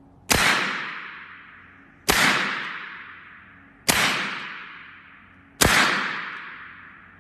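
Four shots from an Evanix semi-automatic .25-calibre PCP air rifle, about one every two seconds. Each is a sharp report that echoes away over a second or more.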